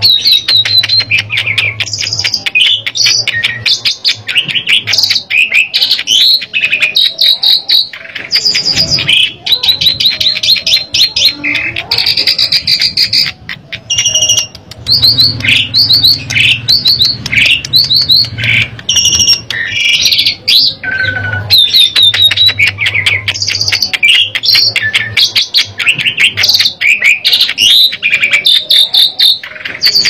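Asian pied starling (jalak suren) singing without pause, 'gacor': a long, rapid run of varied clear whistles, chirps and harsh rattling notes, the full song of a bird in top singing form.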